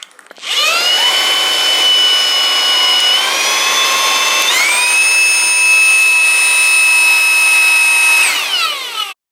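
Dreame V9 cordless stick vacuum's motor spins up with a high whine and steps up in pitch twice as it is switched through its higher power settings. Near the end it winds down and stops.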